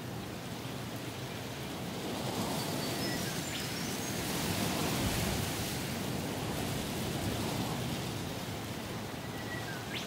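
Strong wind rushing through mountain rainforest, rising in a gust from about two seconds in and easing again near the end. A bird gives a short run of high notes stepping upward partway through, and a short falling call comes near the end.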